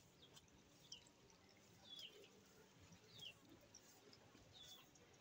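Faint outdoor quiet with a bird calling: about four short, high, falling chirps, roughly one a second.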